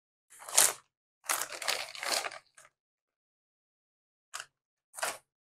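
Food packaging crinkling as it is handled, in several short, irregular bursts.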